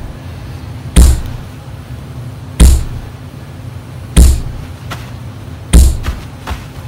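A series of loud punch hits, one about every second and a half: four heavy thumps with a sharp crack, then two smaller hits near the end, over a low steady hum.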